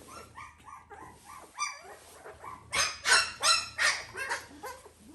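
Newborn puppy whimpering in a run of short squeaks, then crying out in a string of loud yelps for about two seconds from near the middle. It is fussing while being bottle-fed and refusing the large feeding bottle.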